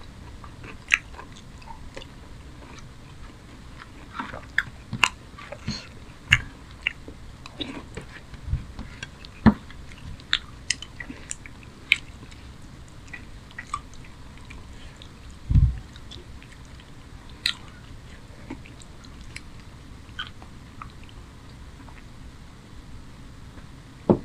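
Close-miked eating: chewing and wet mouth smacks of chicken curry with rice eaten by hand, as scattered sharp clicks, with one dull low thump about two-thirds of the way through.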